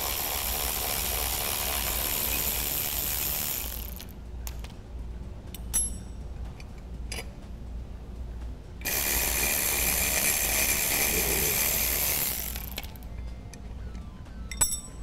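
Cordless electric ratchet running in two stretches of about four seconds each, backing out the bolts that hold the brackets to an old carpeted trailer bunk board. Metal clicks and clinks of the bracket and loose parts being handled come in between.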